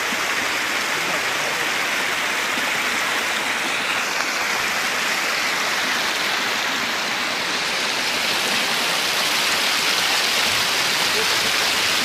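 Small mountain waterfall cascading over rocks: a steady, loud rush of falling and splashing water, with the camera held close to it.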